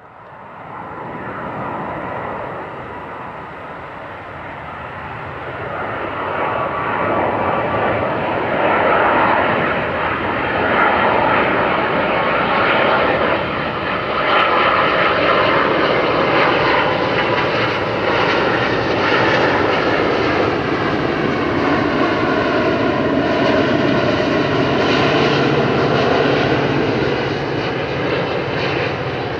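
Jet engines of a Boeing 777-200ER on final approach, a steady noise that grows louder over the first several seconds as the airliner nears and then holds loud as it passes. In the second half, faint tones sweep up and down in pitch through the noise.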